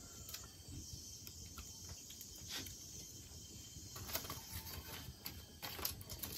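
Insects chirring steadily in the background, with a run of light clicks and knocks from about four seconds in.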